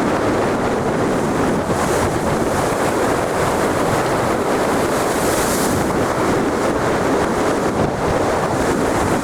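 Heavy surf on the sea with strong wind buffeting the microphone, a loud steady rush of noise. Two brief hissing surges stand out, about two seconds in and again around five and a half seconds in.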